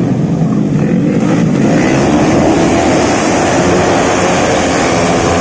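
Tuned 131cc automatic racing scooter engines running at high revs on the race track, growing a little louder over the first two seconds, then holding steady.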